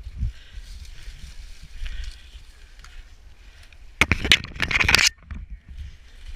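A loud crunching, crackling noise lasting about a second, about two-thirds of the way through, over a steady low rumble.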